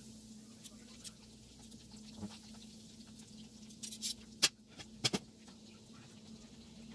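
Breaded chicken drumsticks frying in shallow oil: a soft sizzle broken by scattered crackles and pops, several sharp ones clustering about four to five seconds in, over a steady low hum.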